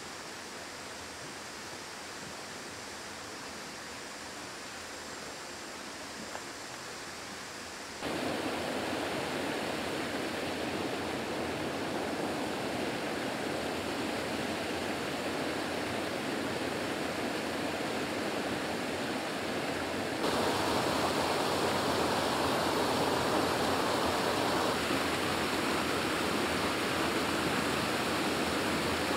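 Water pouring over a small man-made waterfall into a stream pool: a steady rush, quieter at first, then stepping louder about eight seconds in and again about twenty seconds in.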